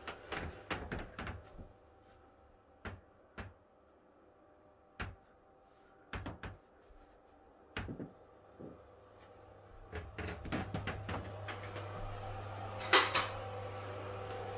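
Scattered light knocks and clicks of someone walking through a house with a handheld phone, over a steady low hum. About ten seconds in, a louder steady hum comes up, and one sharp click rings out about thirteen seconds in.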